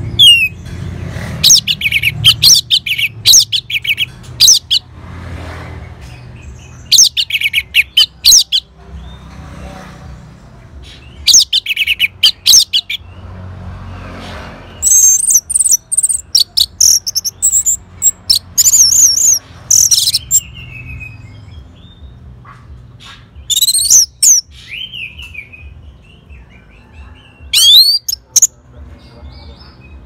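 Male orange-headed thrush singing in repeated bursts of rapid, high, sweeping whistled notes, with short pauses between phrases and one longer, higher run about halfway through.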